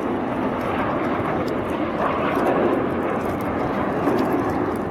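Engines of airshow airplanes flying overhead, a steady noisy rumble with no clear pitch.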